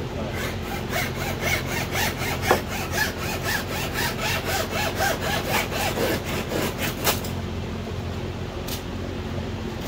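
A windshield cut-out wire sawing back and forth through the urethane bonding the glass to the car body. It goes in quick, even rasping strokes, about four a second, and stops about seven seconds in.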